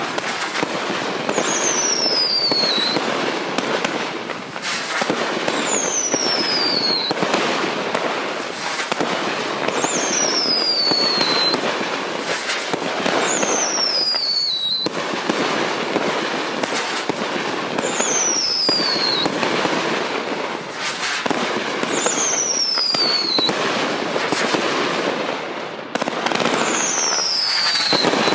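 Hex 48-shot consumer aerial finale set (fireworks cake) firing shot after shot: dense bangs and crackling with little pause. A short falling whistle recurs about every four seconds.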